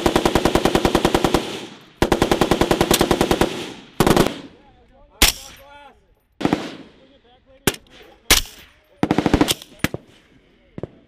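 Automatic weapon fire: two long machine-gun bursts of rapid, evenly spaced shots, then a string of single rifle shots about a second apart, and a short burst near the end. Each shot cracks sharply and is followed by a brief echo.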